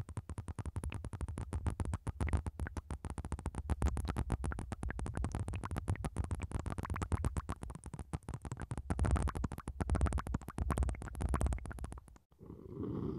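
Blue liquid squeezed from a plastic syringe onto a microphone: a rapid, dense run of wet crackles and pops with low thumps, stopping abruptly near the end.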